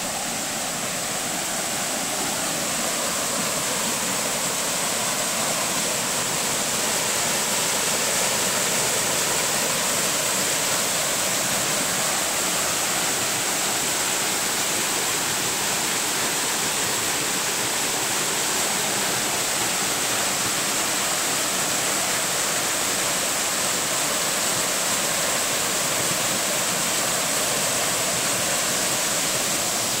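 Waterfall crashing onto a rocky pool: a steady, even rush of falling water that grows a little louder over the first several seconds.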